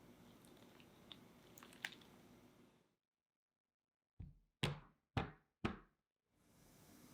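Four sharp knocks on a hard work surface, about half a second apart, as a cake mould is tapped down on the counter.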